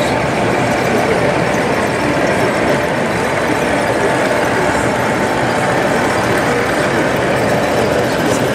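7mm O gauge model Class 47 diesel locomotive's DCC sound decoder playing a steady diesel engine running sound through its onboard speaker as the loco moves.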